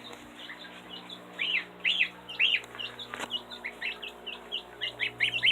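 A gosling and a chick peeping: many short, high calls, repeated two or three times a second.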